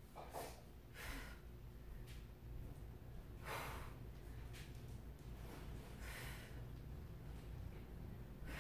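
A woman breathing hard with the effort of holding a plank with alternating arm reaches. She gives several short, sharp exhalations a second or two apart, the loudest about three and a half seconds in, over a low steady hum.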